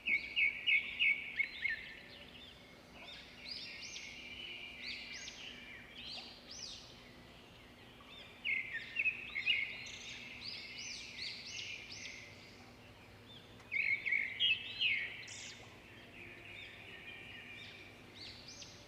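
Birds chirping: quick runs of short, high chirps in a few bursts, the loudest right at the start, over faint steady background noise.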